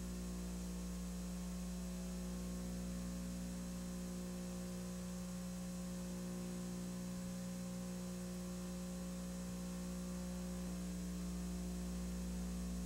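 Steady electrical mains hum with its harmonics, a low buzz that holds at one pitch and level throughout.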